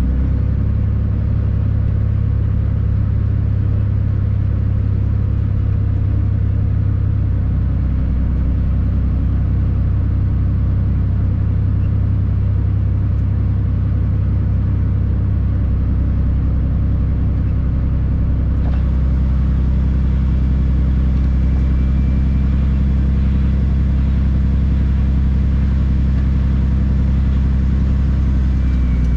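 Tri-axle dump truck's diesel engine running steadily as the truck moves slowly, a deep drone whose note shifts slightly about two-thirds of the way through.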